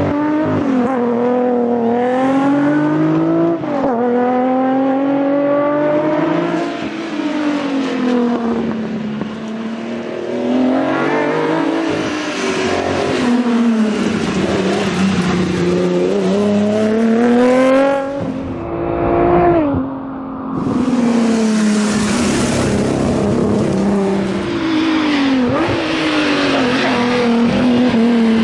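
Datsun 240Z rally car's engine revving hard on a tarmac stage. Its pitch climbs and drops again and again as it goes up and down through the gears and lifts for corners.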